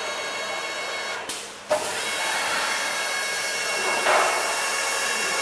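WD-1-WJC-H commutator turning machine running with a steady, high-pitched whine of several held tones. It drops out briefly about a second and a half in, comes back with a sharp click, and swells for a moment about four seconds in.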